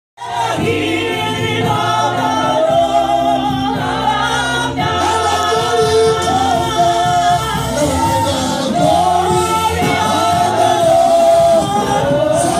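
Live gospel praise-and-worship music, with a group of voices singing together over steady low accompaniment.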